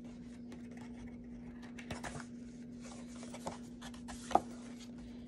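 Paper card being handled and turned over in the hands: soft rubbing and scraping with a few light ticks, over a steady low hum.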